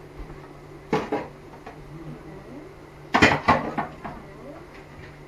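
Kitchenware being put away: two light knocks about a second in, then a louder cluster of clattering knocks and clinks about three seconds in, like dishes and a cupboard door.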